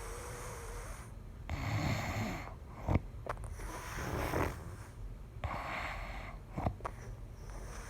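A person snoring in sleep, a breath about every two seconds, some with a low rattling rumble. Short sharp clicks come about three seconds in and again near the end.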